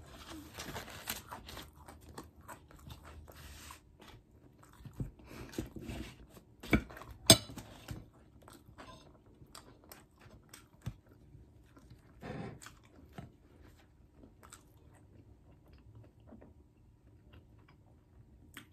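Chewing and crunching of food, heard close up, in uneven bouts with small crackling clicks. About seven seconds in, two sharp clicks stand out as the loudest sounds.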